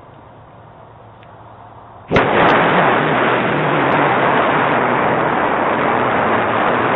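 Loud, steady rushing noise right on a doorbell camera's microphone. It starts suddenly about two seconds in, after a faint hiss.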